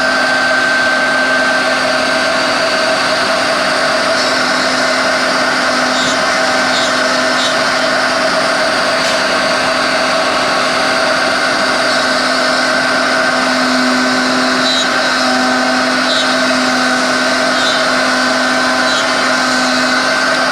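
MAGNUM II CNC router running steadily: a continuous machine whine with several held tones over a noisy hiss.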